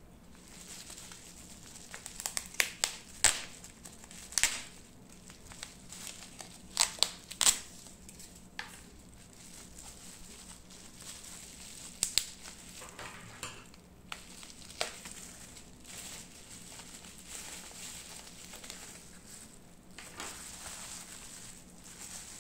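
Plastic bubble wrap crinkling and crackling as hands handle and unwrap a small wrapped box. A run of sharp crackles comes in the first several seconds, a couple more follow about twelve and fifteen seconds in, and softer rustling comes after.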